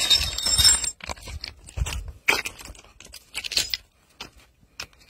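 Irregular crunching and rustling of footsteps on loose stones, with a landing net holding a large fish being carried and set down on rock. There are a few low thumps in the first two seconds and scattered clicks after.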